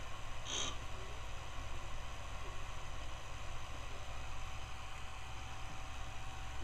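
Homemade electromagnetic pulse motor running: a cut-steel rotor with iron prongs spinning past a pulse-driven wire coil, giving a steady low hum and buzz. A brief high chirp sounds about half a second in.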